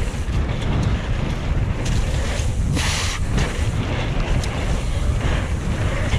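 Wind buffeting an action camera's microphone during a fast mountain-bike descent, mixed with tyre noise over the wet trail. A brief louder hiss comes about three seconds in.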